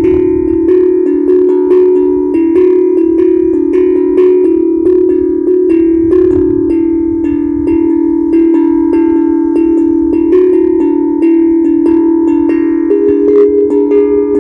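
HAPI steel tongue drum played with quick, repeated strikes, its metal tongues ringing on so the notes overlap into a continuous shimmering tone.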